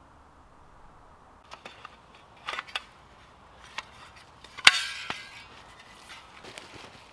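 Several sharp snaps and clicks at irregular intervals, the loudest about two-thirds of the way in and followed by a brief rustle.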